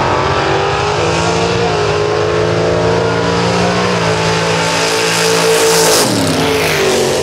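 Gasser drag cars launching off the line at full throttle and racing down the drag strip. The engine note climbs at the launch and steps down briefly about 4 seconds in. Near 6 seconds the pitch slides down as a car passes close by.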